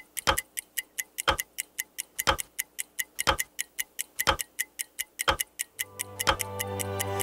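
Ticking of a TV channel's on-air clock ident: a loud tick once a second with lighter ticks in between. About six seconds in, a low sustained tone starts to swell under the ticking.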